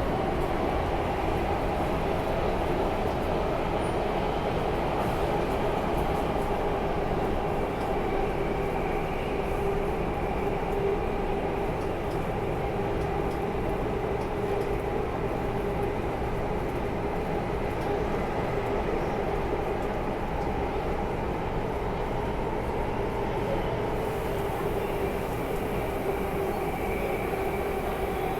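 Alstom Metropolis C751C metro train running between stations, heard from inside the carriage: a steady rumble of wheels on rail with steady humming tones over it. A high hiss joins near the end.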